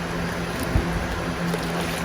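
A pot of red bean soup with smoked turkey bubbling as it cooks, a steady rushing hiss with low irregular bubble pops, over a low steady hum.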